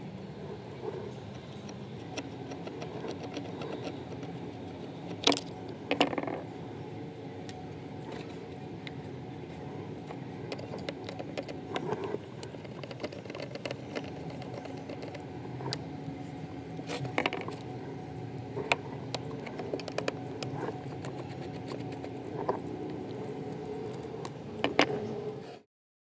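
Screwdriver working screws out of the metal case of a Spark-L electronic gas igniter: small metallic scrapes and clicks, with a few louder sharp clinks, over a steady low hum. The sound cuts off suddenly just before the end.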